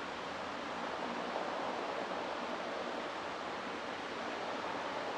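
Steady rush of a large volume of water pouring down a dam spillway, sending up clouds of spray.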